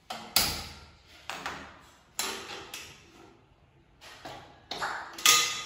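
Aluminium steamer pot and its lid clanking as they are handled on a gas stove: a run of about six sharp metal knocks, the loudest near the end with a short ring.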